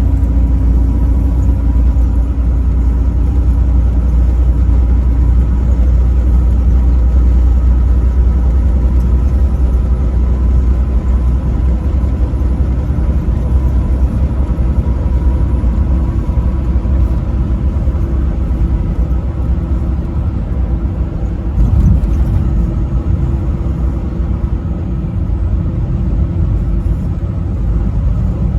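Truck running at highway speed: a steady deep engine and road rumble with faint steady tones over it, swelling briefly about three-quarters of the way through.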